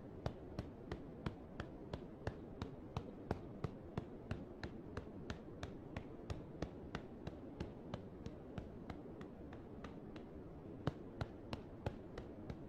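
Fingertips pecking at the arm in a self-massage: light, even taps about three a second, going on steadily.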